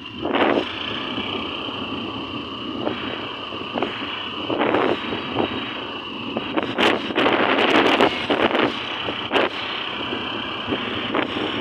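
Motor scooter riding along: steady engine and road noise, with wind buffeting the phone microphone in irregular gusts, heaviest from the middle to past three-quarters of the way through.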